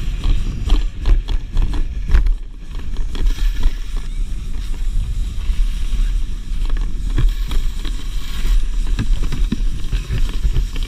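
Plastic Dagger Mamba whitewater kayak hull sliding fast down packed snow: a loud, steady scraping rumble with scattered knocks and bumps as the boat jolts over the snow.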